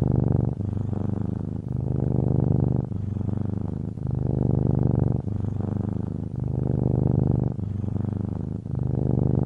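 A domestic cat purring steadily and closely recorded. The purr changes in strength and tone with each breath in and out, about once a second.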